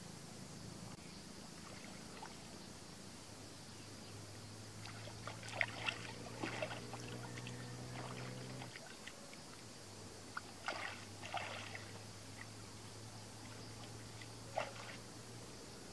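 Hands splashing and sloshing in shallow muddy water: a few short splashes about five to six seconds in, a cluster around eleven seconds and one more near the end. Under them a steady low motor hum runs for several seconds at a time, breaking off briefly around nine seconds.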